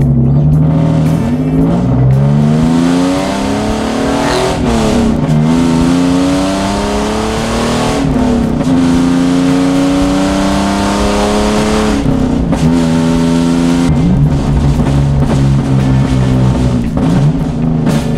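Hyundai Genesis Coupe 3.8 V6 heard from inside the cabin, accelerating hard up through the gears. The engine note climbs and drops back at each shift, about two, four, eight and twelve seconds in, then holds a fairly steady pitch for the last several seconds.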